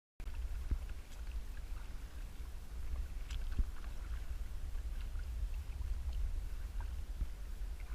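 Low, steady wind rumble on the microphone from a kayak on the water, with faint scattered small ticks and splashes.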